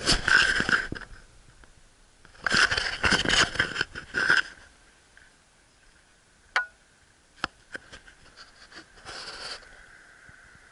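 Handling noise from a handheld camera: bursts of scraping and rubbing on the microphone, with a few sharp clicks in the quieter middle.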